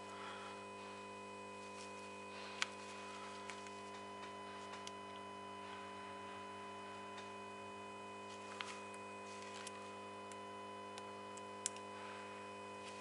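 Steady electrical hum with a few faint, sharp clicks, the handling of a thin probe needle being worked into the back of a small wiring connector.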